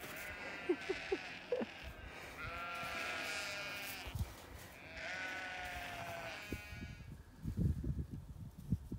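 Sheep bleating: two long, wavering bleats a couple of seconds apart, followed near the end by soft low thuds.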